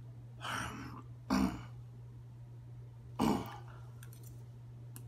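A man coughing twice, about two seconds apart, after a softer sharp breath, while eating very spicy noodles; a steady low hum runs underneath.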